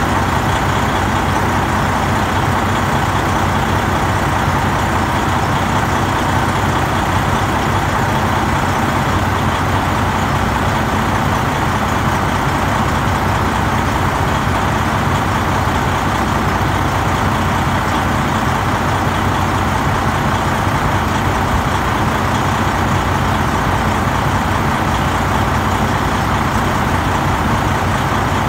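Heavy truck diesel engine idling, a loud, even drone that cuts in abruptly out of silence and holds steady.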